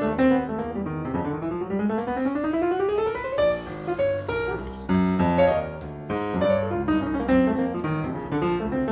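Background piano music, with a quick rising run of notes about a second in, followed by further notes and chords.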